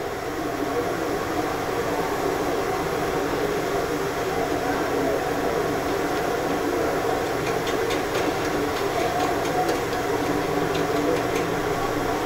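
A steady, rumbling outdoor background din with no speech. A few light clicks come through in the second half.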